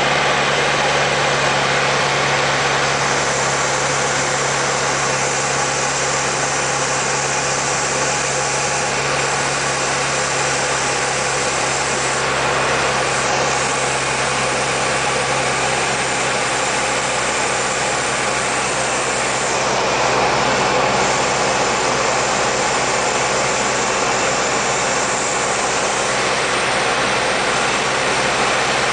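Steady drone of a Diamond Katana light aircraft's engine and propeller in level flight, with a constant low hum under an even hiss.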